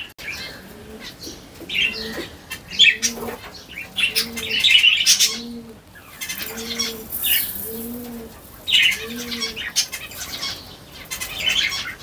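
Caged parrots chirping and squawking, while a dove coos in a steady series of about ten low coos, one every second or so.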